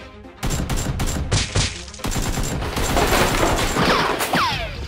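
Rapid automatic gunfire, dubbed-in gun sound effects for a Nerf battle, starting about half a second in with a short break near the two-second mark. Several falling whistles sound near the end.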